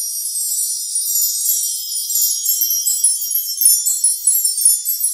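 High, tinkling chimes: many small bell-like notes overlapping in a steady, bright shimmer, with no low sound beneath them.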